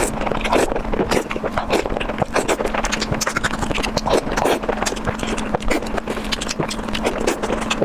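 Close-miked eating sounds: a person chewing and smacking food in a quick, irregular run of wet clicks and crackles.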